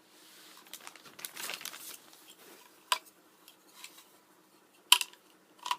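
Hand-handling of a French fry cup holder adapter and its packaging: about two seconds of crinkling, then three sharp clicks or knocks spaced a second or two apart, the middle one the loudest.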